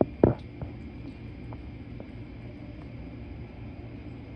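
Domestic tabby cat eating from a clear plastic bowl. There is a sharp knock about a quarter second in, then faint scattered clicks of eating over a steady low hum.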